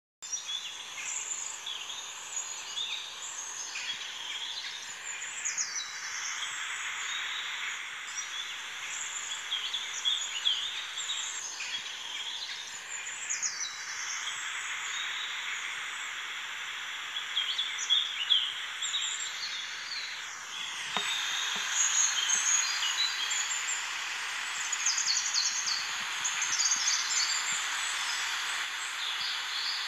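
Outdoor nature ambience: many birds chirping over a steady hiss, with a long falling sweep about every seven or eight seconds.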